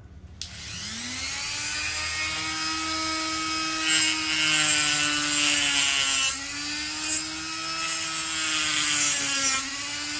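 Handheld rotary tool with a small abrasive disc spinning up to speed, its whine rising in pitch over the first second. It then grinds against the corroded metal back of a watch case, a grating hiss over the steady motor whine, with a short let-up about six seconds in. The sound cuts off abruptly at the end.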